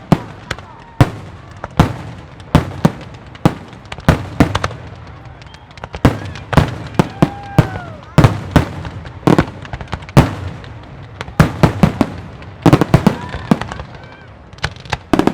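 Aerial firework shells bursting in steady, irregular succession, one to three sharp bangs a second, each trailing off in a short echo.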